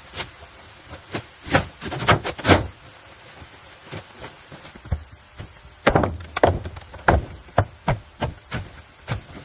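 A run of irregular knocks and thuds, some twenty in all, busiest about a second and a half in and again from about six to seven and a half seconds in.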